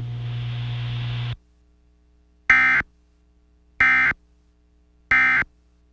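Emergency Alert System end-of-message signal: three identical short bursts of SAME digital data tones, about a second and a quarter apart. Before them a steady low hum with hiss cuts off about a second and a half in.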